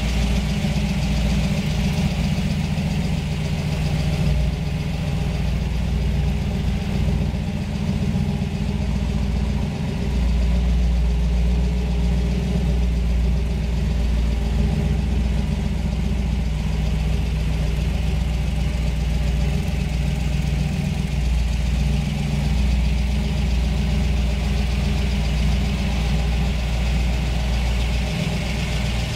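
1962 Chevrolet Corvette 'Fuelie', its fuel-injected 327 V8 idling steadily.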